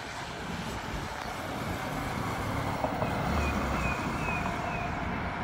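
Steady street traffic noise from vehicles on a road. It swells a little about halfway through as something passes close by.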